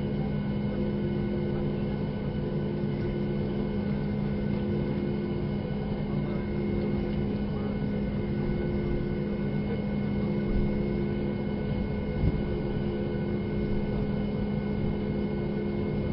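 Steady cabin noise inside a Boeing 737 MAX 8 on the ground: the CFM LEAP-1B engines and air system running with a constant low hum and a steady whine. There are two light knocks about ten and twelve seconds in.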